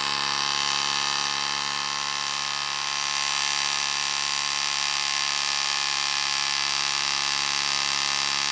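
A cordless hammering nailer runs with a steady, rapid buzz as it drives a long nail down into timber.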